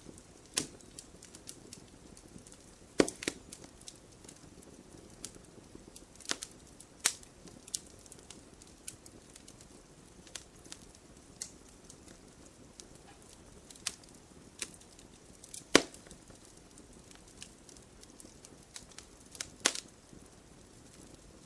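Wood campfire burning with a soft steady hiss and irregular sharp crackles and pops, a few of them loud.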